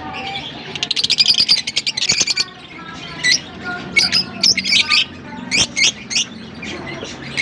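Caged lovebirds chirping. A fast chattering run of calls comes about a second in, followed by separate sharp chirps.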